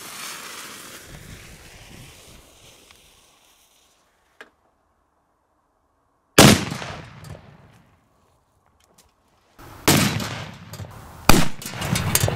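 A firecracker fuse hisses and sparks for about four seconds. Then a powerful Mr. Boom 2 firecracker goes off inside a steel ammunition box with a single loud, sharp bang about six seconds in, blowing the box apart. Near the end comes a second stretch of loud bangs with a very sharp crack, which cuts off suddenly.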